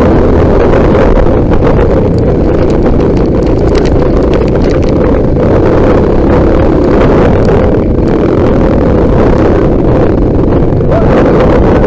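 Trail motorcycle engine running under way, with wind buffeting the microphone and frequent knocks and rattles.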